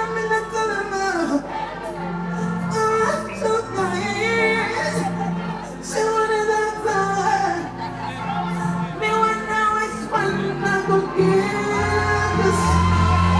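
Live pop music with a woman singing over held keyboard chords; a deep bass part comes in near the end.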